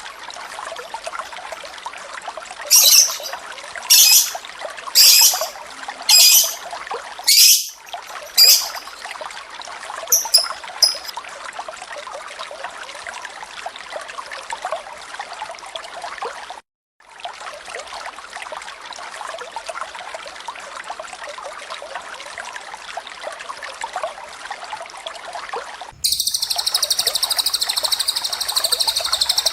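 Steady flowing-water sound with lovebird and cililin song laid over it. There are six loud, sharp, high calls about a second apart in the first nine seconds and a few faint chirps just after. Then only water runs, until a dense, rapid, high trill starts near the end.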